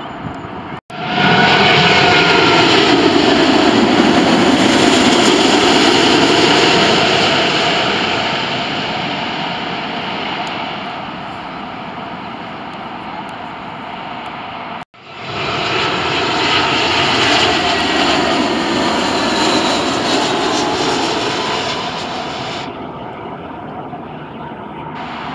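Jet airliners passing low on final approach to land: loud jet engine noise with a falling whine, then fading. It happens twice, each pass starting abruptly after a short break in the sound, about a second in and again about fifteen seconds in.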